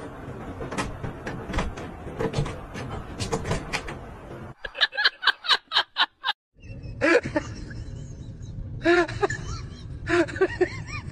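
A cat pawing at a wooden cupboard door's knob, with many clicks, knocks and the door rattling. After a cut, wavering pitched calls begin about seven seconds in, typical of a husky howling and yowling.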